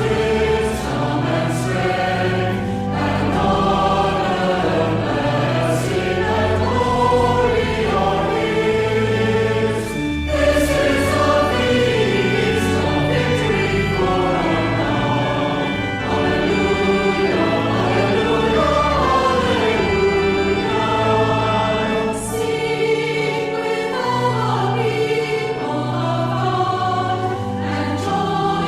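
A choir singing a hymn in sustained phrases, with short breaks between phrases about ten and twenty-two seconds in.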